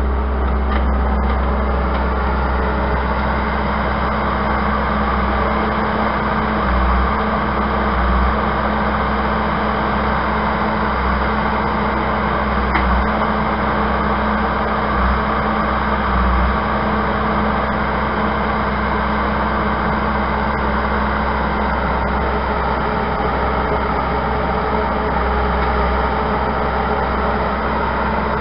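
An engine running steadily at one speed, with a constant low hum and rumble and a few brief low swells.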